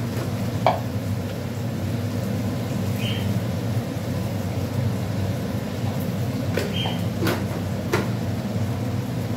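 A steady low hum with a few sharp metallic knocks, a spatula striking a cooking pan as the masala is stirred and sautéed, about once near the start and three times close together later on.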